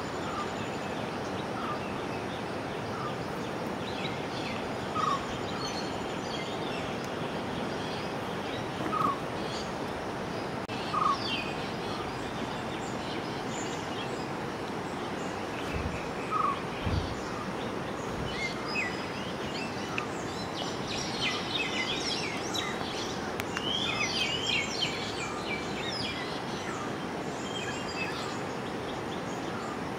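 Birds calling over a steady outdoor hiss: one bird repeats a short single note every few seconds, and a burst of higher twittering from other birds comes in the second half. Two brief low thumps about halfway through.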